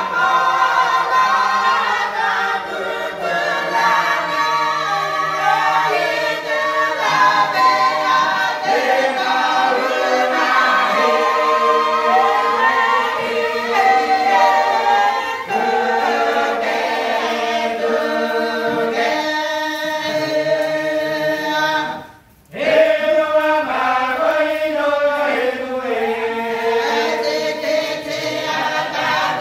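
A group of children and young people singing together unaccompanied, many voices at once. The singing breaks off for a moment about three-quarters of the way through, then picks up again.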